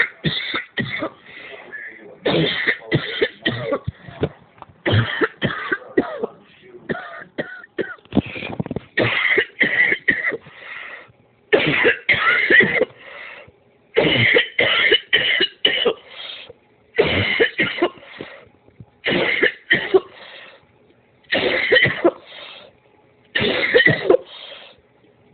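A girl coughing in a long, hard fit: about ten bouts of several quick coughs each, one bout every two to three seconds with short breaths between.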